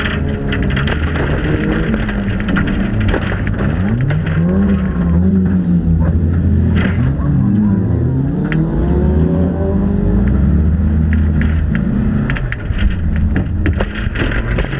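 Demolition derby car's engine revving hard on a dirt oval, heard up close from on the car, its pitch rising and falling again and again as the driver gets on and off the throttle. Sharp rattles and knocks from the battered body break in throughout.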